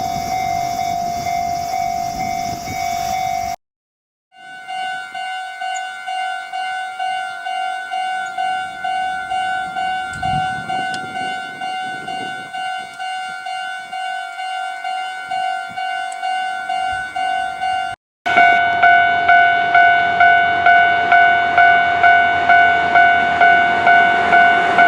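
Japanese railway level-crossing warning bells, three in succession: Sotetsu's crossing ringing steadily, then after a brief break Meitetsu's crossing dinging at a slower regular beat, then after another break Keihan's crossing dinging faster and louder.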